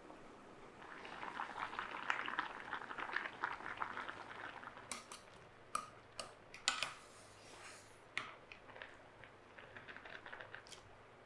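Dried noodles cooking in boiling water, bubbling and crackling for several seconds. Then a few sharp clicks of chopsticks against the pot as the noodles are stirred and lifted.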